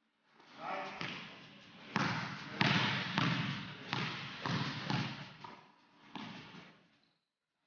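A basketball being dribbled on a hardwood gym floor, a run of echoing bounces about two a second that starts about two seconds in.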